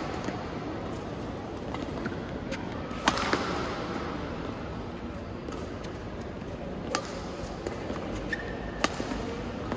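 Badminton rally: sharp smacks of rackets striking the shuttlecock every couple of seconds, the loudest about three seconds in, over the steady hum of a sports hall, with a short squeak near the end.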